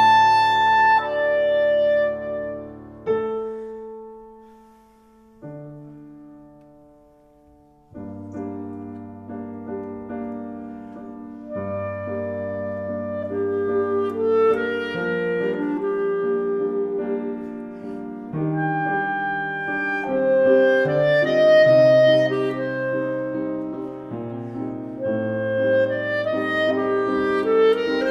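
A clarinet playing classical music with piano accompaniment. About three seconds in the music thins and fades to a soft stretch, then the piano and clarinet come back in fuller about eight seconds in.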